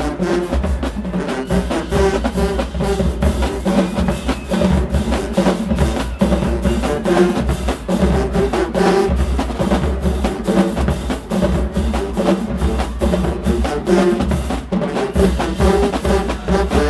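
Marching band playing a loud, drum-driven piece: fast snare and tenor drum strikes over pounding bass drums.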